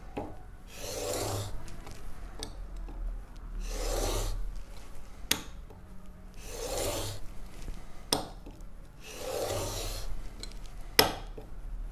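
Steel chisel bevel in a honing guide rubbed on dry 320-grit sandpaper over glass: four slow rasping strokes, each about a second long, with three sharp clicks between strokes. It is the bevel being ground back to re-establish the edge and take out small nicks.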